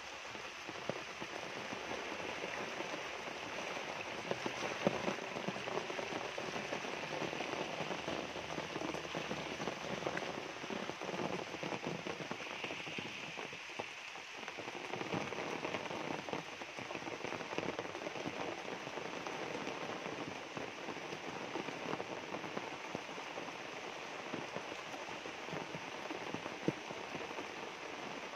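Steady rain falling on dense jungle foliage and a waterlogged dirt path: a constant hiss made up of countless fine drop impacts.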